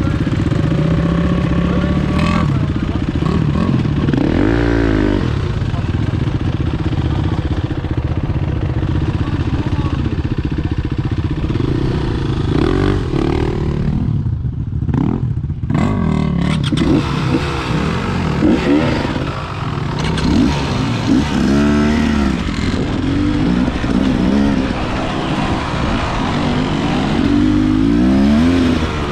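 Enduro dirt bike engine being ridden off-road, revving up and easing off again and again as the throttle is worked, with a short dip in the sound about halfway through.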